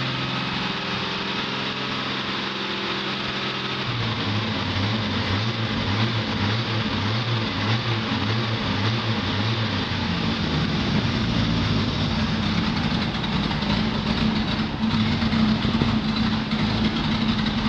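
Carbureted 225 Slant Six engine of a 1981 Dodge D150 idling. About four seconds in its note changes and turns uneven for several seconds, the rough idle the owner traces to a random misfire at idle that persists after new manifold gaskets.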